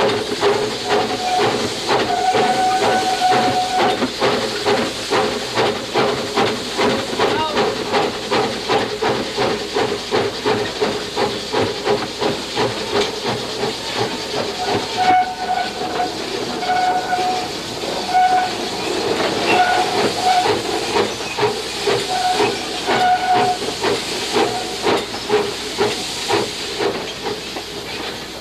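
Steam locomotive Reno, a Baldwin 4-4-0, running, heard from inside its cab: a steady hiss of steam over a rhythmic exhaust chuff. A short high squeal comes and goes several times.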